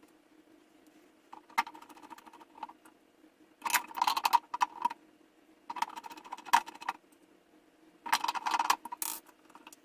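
Small hard parts of a carbon fibre quadcopter frame and its screws and standoffs clicking and rattling as they are handled and fitted together, in four short bursts of clatter over a faint steady hum.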